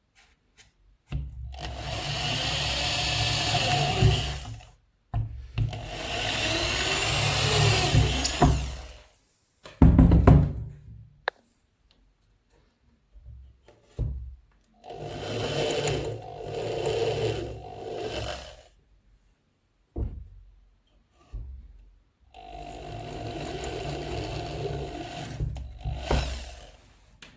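Bench grinder converted to a disc sander, running in four short bursts of a few seconds each with a steady hum and whine, each one starting and stopping abruptly, with a sharp loud burst about ten seconds in.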